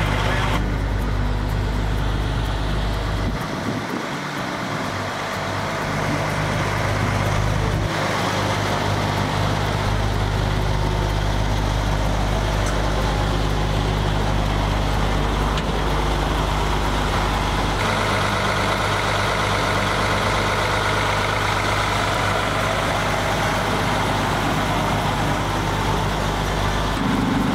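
Car-hauler truck's diesel engine idling steadily with a low hum, its tone shifting a few times.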